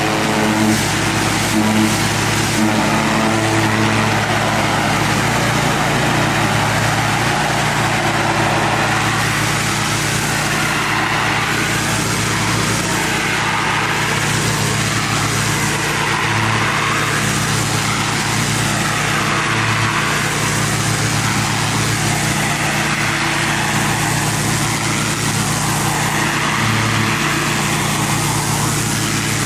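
Pressure washer's petrol engine running steadily while its high-pressure water jet sprays concrete, the spray hiss rising and falling every couple of seconds.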